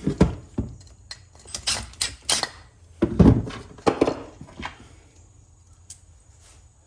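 Small metal washers and hardware clinking and clattering as they are handled, a string of irregular knocks and rattles, the loudest about three seconds in.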